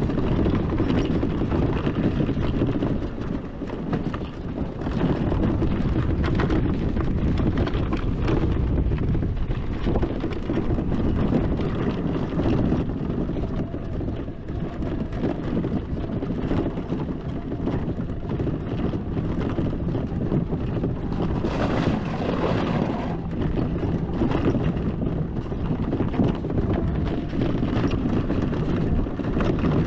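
Electric ATV riding over rough ground: wind buffeting the microphone over a continuous low rumble from the tyres, with many small knocks and rattles from bumps.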